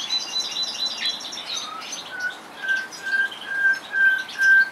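Common nightingale singing: a fast rattling trill of high notes, then from about a second and a half in a run of about seven pure whistled notes on one pitch, growing louder toward the end.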